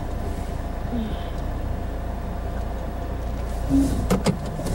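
Car engine and road noise heard inside the cabin as a steady low rumble while the car moves slowly. Two sharp clicks come near the end.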